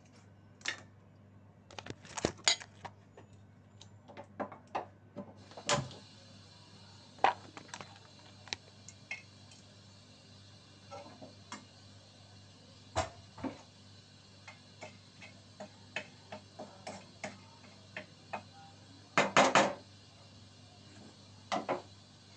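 Kitchen clatter: scattered knocks and clinks of pots, containers and utensils being handled, the loudest a quick cluster near the end, over a low steady hum. A faint steady hiss comes in about six seconds in.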